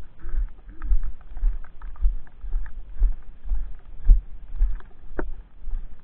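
Footsteps at a steady walking pace, about two a second, each a dull thump with a light scuff on snow. A single sharper click about five seconds in.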